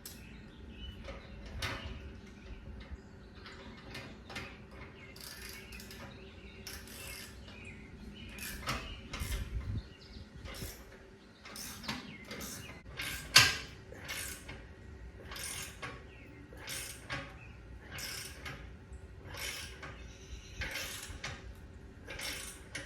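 A hand ratchet working in short strokes, with metal clinks and scrapes, as the exhaust clamp on a slip-on muffler is tightened. One sharp metallic clank about 13 seconds in.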